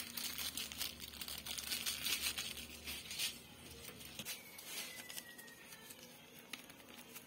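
Faint crinkling and rustling of a pepper container being handled and shaken as ground black pepper is sprinkled over fish, busiest in the first three seconds or so and then thinning out.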